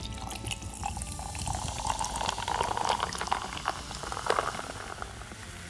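Coca-Cola poured from a can into a glass over ice: a splashing pour with a crackling fizz. The pour tails off near the end, and the foam goes on fizzing.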